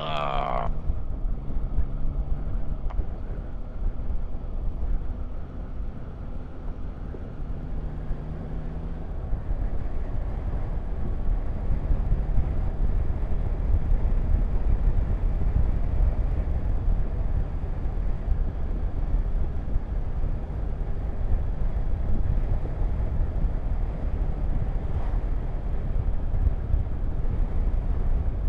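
Riding on a Yamaha Tracer 9 GT: wind rushing over the rider's camera microphone, with the bike's three-cylinder engine running steadily underneath. The engine's note is plain for the first several seconds, then the wind grows louder as the bike picks up speed and covers it.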